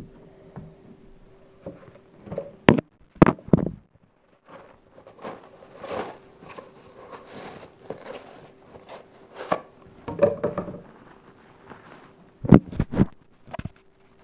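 Paper towels rubbing and wiping the inside of a glass hamster tank dry, in a run of scratchy strokes, with a few sharp knocks against the tank about three seconds in and again near the end.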